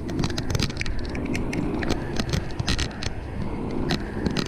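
Fixed-gear bicycle rolling along a paved street: a steady low rumble with frequent sharp rattles and clicks throughout.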